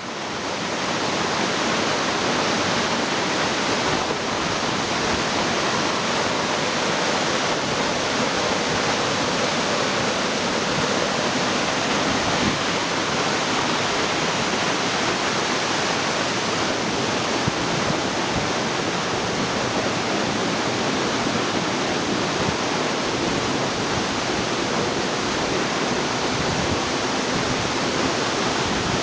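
Waterfall pouring in strong flow: a steady, unbroken rush of falling water.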